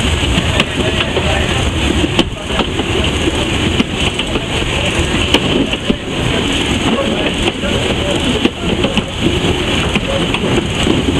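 Steam locomotive running, heard from inside its cab: a loud continuous rumble and rattle with many sharp clicks and knocks.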